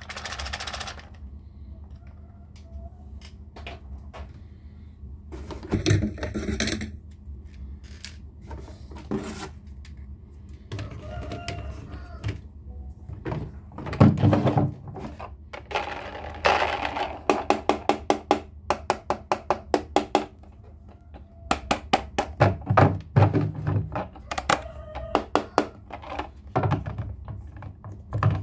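Toy trains clattering: scattered clicks and knocks, a few heavier ones among them, with a run of rapid, evenly spaced clicks, about four a second, in the middle.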